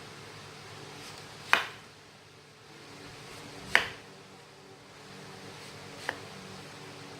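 Kitchen knife cutting slices of breadfruit, striking the cutting board with three sharp knocks about two seconds apart, over a steady low hum.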